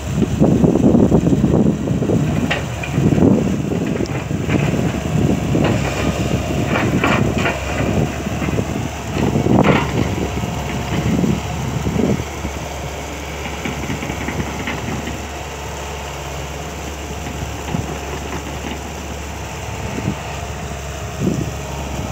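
Kobelco excavator's diesel engine working, with heavy uneven surges and a few sharp knocks in the first half as the machine digs, then running more steadily and quieter for the second half.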